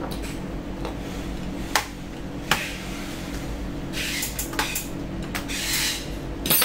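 Plastic laptop casing being handled and lifted: a couple of sharp clicks, then scraping and rubbing of the case parts, over a steady low hum.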